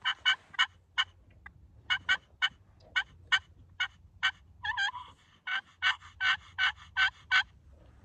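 Hand-held friction turkey call (pot call) worked with a striker, imitating a hen turkey. It gives a string of short, sharp notes, a few seconds apart at first, then a steadier run of yelps about two or three a second in the second half.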